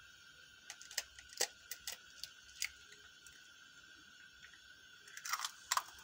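A raw egg tapped a few times against a glass bowl, then its shell cracked open with a short cluster of crunchy snaps near the end.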